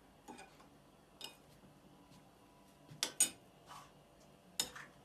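A spoon stirring borscht in a bowl, clinking against the bowl now and then: a few scattered clinks, the loudest pair a little after three seconds in.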